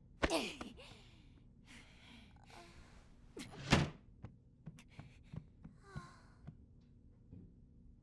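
A series of thuds and knocks: a sharp thud right at the start, a loud thud near the middle, then several lighter knocks.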